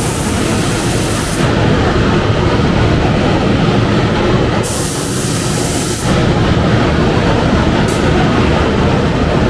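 Paint booth airflow running steadily with a low rumble, overlaid by hissing passes of a compressed-air spray gun laying on clear coat: one pass lasting about a second and a half at the start, another about five seconds in, and a brief trigger pull about eight seconds in.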